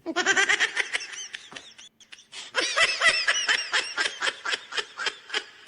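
High-pitched laughter: a rapid run of 'ha-ha' pulses in two bouts, with a short break about two seconds in.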